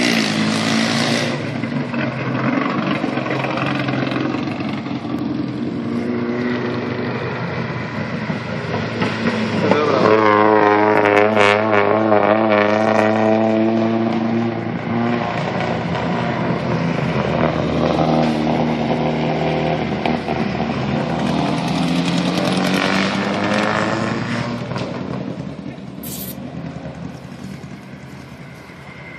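Hill-climb race cars accelerating hard uphill past a bend, engines revving high and shifting as each car goes by. The loudest pass comes about ten seconds in with a quickly wavering, climbing engine note, and another car passes a little over twenty seconds in. The sound then fades as the cars move away.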